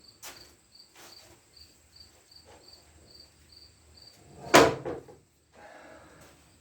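Faint clicks and handling knocks as a part is worked on by hand, with one sharp, loud knock a little past halfway through. A cricket chirps steadily, about three times a second, in the background.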